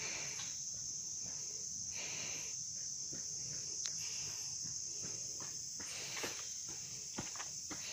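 Steady high-pitched insect chorus, an unbroken drone, with a few faint clicks scattered through it.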